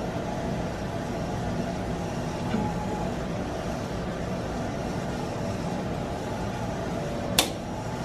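Steady hum of a tensile testing machine pulling a 3D-printed plastic carabiner, with a faint knock a few seconds in. Near the end comes a single sharp snap as the carabiner's nose is forced open under load.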